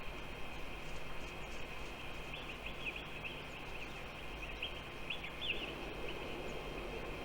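Outdoor ambience of wind rushing over the microphone, with a steady high hum underneath. Birds chirp in short bursts of calls from about two seconds in to past the middle.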